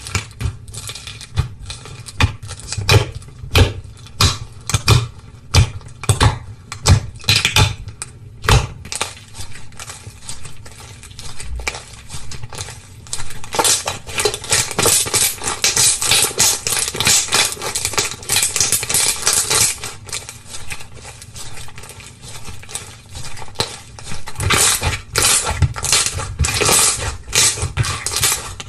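Slime being squeezed and poked by hand: a long run of sticky clicks and pops, thickening into dense crackling about halfway through and again near the end.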